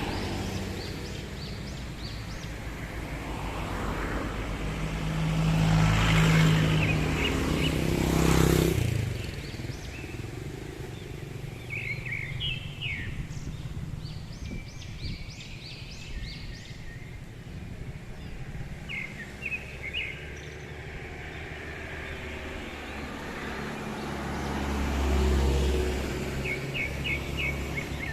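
Motor vehicles pass along the road, swelling and fading about 6 s in, again near 9 s, and about 25 s in. Between the passes, short high bird chirps come in small clusters over a steady outdoor background.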